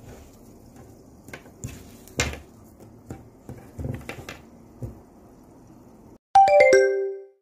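Faint rustling and a few soft clicks as a crocheted raffia phone bag is handled and turned in the hand. About six seconds in, after a brief cut to silence, a quick run of bell-like chime notes rings out and fades. The chime is the loudest sound.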